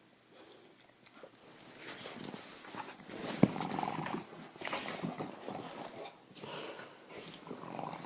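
A pug and a mastiff puppy playing together: irregular scuffling and dog sounds, with one sharp knock about three and a half seconds in.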